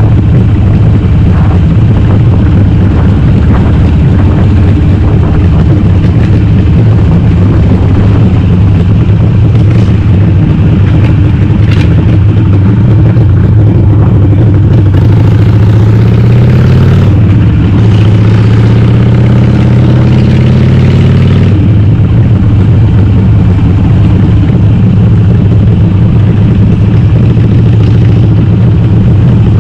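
Harley-Davidson Sportster V-twin, bored to 1200 cc and breathing through a Cobra Speedster 909 exhaust with the baffles removed, running loud under way. About halfway through, the note rises as the bike accelerates, breaks briefly at a gear change, rises again, and then drops back to a steady cruise.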